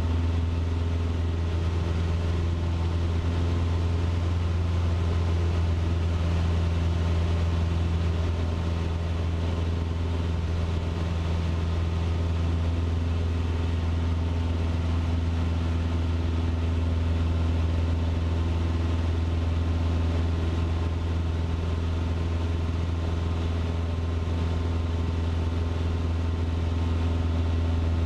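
Cessna 150's four-cylinder Continental O-200 engine and propeller droning steadily in flight, heard inside the cabin.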